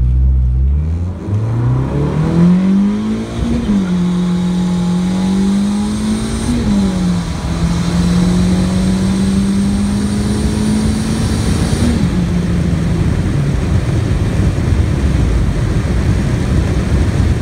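Turbocharged Honda D16Y7 1.6-litre SOHC non-VTEC four-cylinder, heard from inside the cabin, accelerating hard at full throttle on about 16 psi of boost. The revs climb through the gears, with shifts about three and a half, six and a half and twelve seconds in. After the last shift it runs steadier at lower revs.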